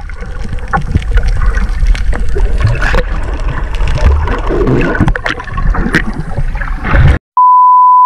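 Underwater sound from a submerged action camera: bubbles and rushing water with a low rumble and scattered clicks as swimmers move around it. Near the end it cuts to silence, and a loud steady one-pitch bleep tone comes in.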